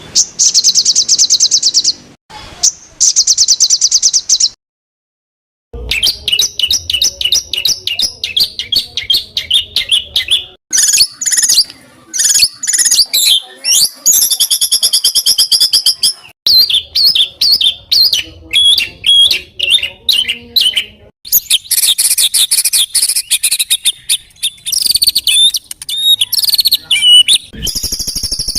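A compilation of songbird songs used as bird-training material, made up of rapid, harsh repeated-note trills and varied high chattering phrases that change abruptly from one to the next. About four and a half seconds in, the song cuts out to silence for just over a second before it resumes.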